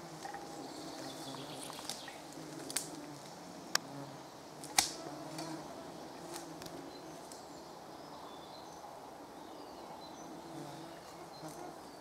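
Faint buzzing of mosquitoes, with a few sharp clicks, the loudest about five seconds in.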